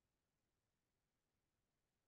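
Near silence: a faint, even noise floor with no distinct sound.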